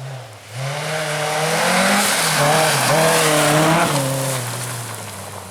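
Rally car passing at speed, its engine revving up and dropping back several times as the driver lifts and shifts. It is loudest about two to four seconds in, then fades away.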